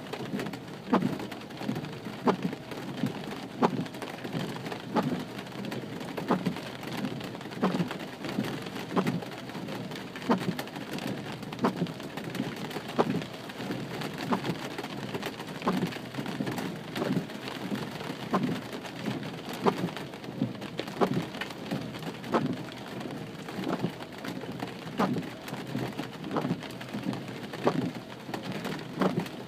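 Steady rain falling on a car, with windshield wipers sweeping across the glass about once a second.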